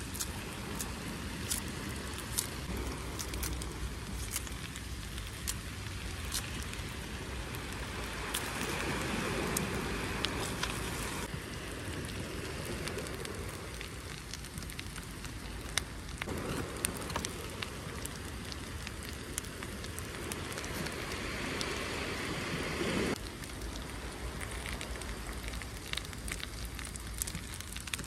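Potatoes, onion, pancetta and cavolo nero frying in butter and oil in a frying pan, sizzling steadily with frequent small pops and spits.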